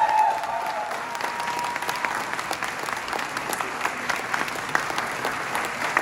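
Audience applauding: many hands clapping together, a little louder at the very start, then steady.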